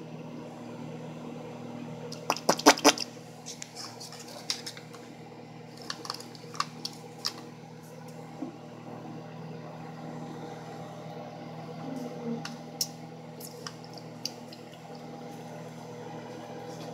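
Microwave oven running with a steady hum while heating popcorn that has not started popping. A few sharp clicks, loudest as a quick cluster about two to three seconds in, with single clicks scattered later.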